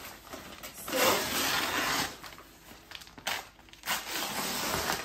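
Rustling and crinkling as a folded bamboo-backed carpet is handled and spread out, in two spells with a quieter gap between.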